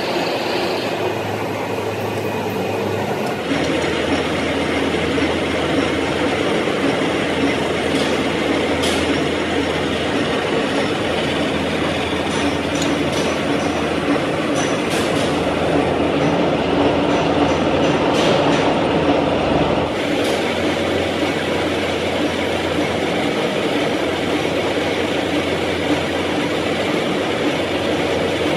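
A gear hobbing machine running with a steady mechanical drone that gets louder a few seconds in. A few light metallic clinks come through it.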